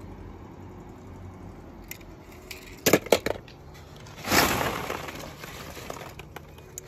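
Small hard objects click and clatter together in a quick cluster of sharp clicks about three seconds in, followed a second later by a short rustling swish, as when toys are handled.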